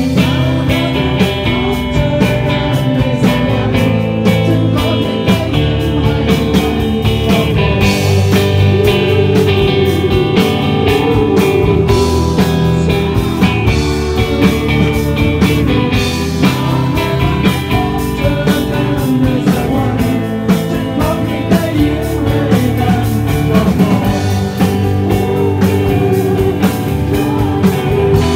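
Loud live rock band playing electric guitars and bass guitar, with a singer singing into a microphone.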